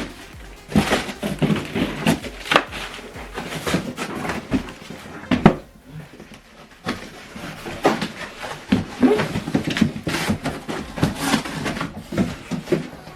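Boxed soundbar components and their packaging being handled during unboxing: irregular rustling and scraping with sharp knocks, and a quieter stretch about halfway through.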